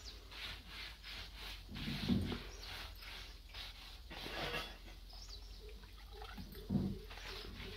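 Wet rag rubbed by hand over a mud-plastered wall in quick repeated strokes, spreading blue wash, with two dull low thumps, one about two seconds in and one near the end.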